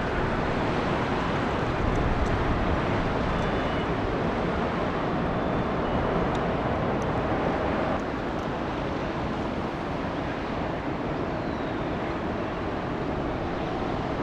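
Steady rumble and rushing of a large cruise ship passing close by on the canal, mixed with wind on the microphone; it eases slightly about eight seconds in.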